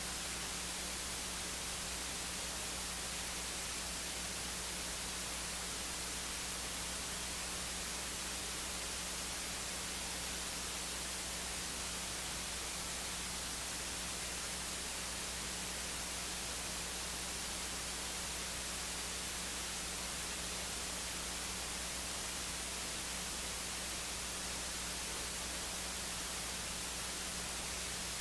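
Steady hiss with a low, even hum underneath and no other sound: noise from the audio feed with no program sound on it.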